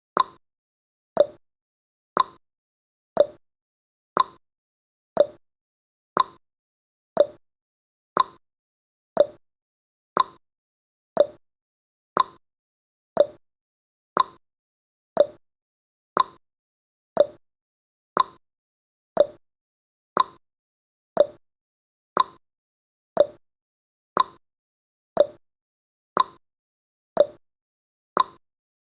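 Countdown timer's tick sound effect: one short, sharp click every second, evenly spaced, each fading quickly.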